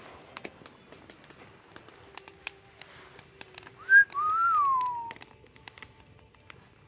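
A whistle about four seconds in: a brief high upward note, then a longer note that rises and falls away over about a second.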